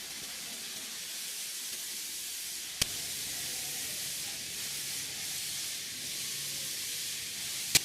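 Steady, high hiss of workshop noise, with a sharp click about three seconds in and another near the end.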